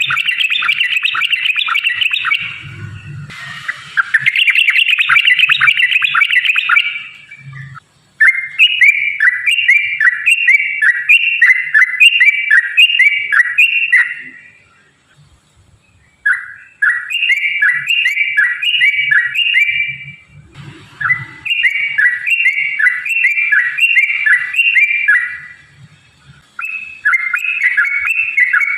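Yellow-vented bulbul (trucukan) singing: about six runs of rapid, bubbly, rolling notes, each lasting a few seconds, with short pauses between them.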